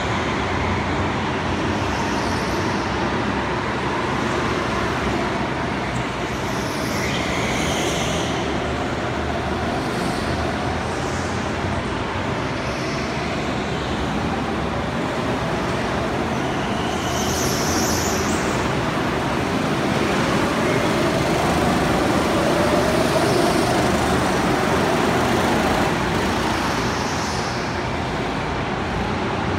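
Go-karts running laps on an indoor track: a steady din of kart motors throughout. About two-thirds of the way through, one motor note rises and falls as a kart passes close by.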